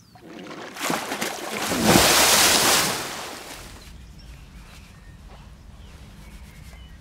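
A large splash of lake water. It swells over about two seconds and dies away about three and a half seconds in, leaving a quiet outdoor background.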